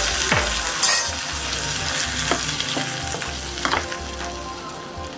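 Hot tempering oil with fried red chillies and curry leaves sizzling on coconut chutney in a steel bowl, the hiss slowly dying down as a spoon stirs it in. A sharp clatter comes about a second in.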